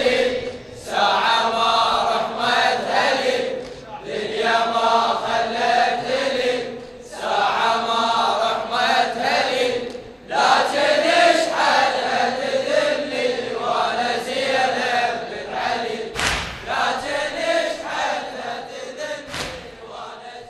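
Male voices chanting an Arabic Shia latmiya refrain in repeated phrases with short breaks, fading out at the end. Two sharp knocks cut through near the end, about three seconds apart.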